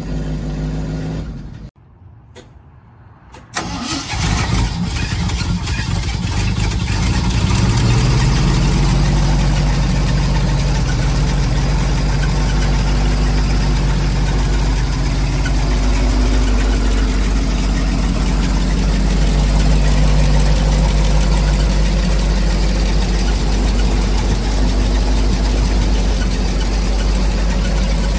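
1980 Ford 700 truck engine running. It cuts out about two seconds in, starts again a moment later, and builds up to a steady run.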